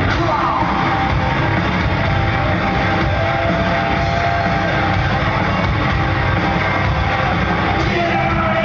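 Industrial metal band playing live in an arena: loud, steady rock music with guitar, drums and sung and shouted vocals, echoing in the large hall.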